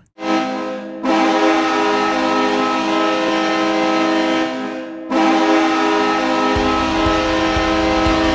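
Hockey goal horn, the New York Islanders' goal horn, sounding in two long, steady blasts, the second starting about five seconds in. A thumping drum beat comes in under the second blast.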